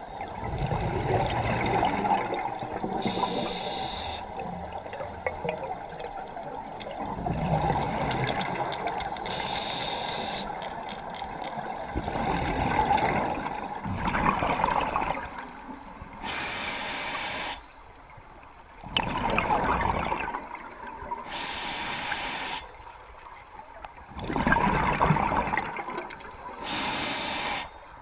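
Scuba diver breathing through a regulator underwater: a short hiss on each inhale and a longer burble of exhaled bubbles, in a regular cycle about every five seconds in the second half. A run of rapid clicks comes about a third of the way in.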